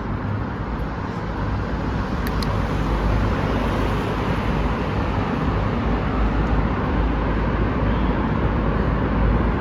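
Steady road and traffic noise with a low wind rumble on the microphone while riding a bicycle, with a faint click or two about two seconds in.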